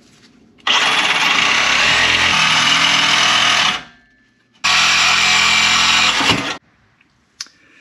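DeWalt 20V brushless cordless reciprocating saw cutting through an exhaust pipe. It runs in two bursts: about three seconds, a brief stop, then about two seconds more.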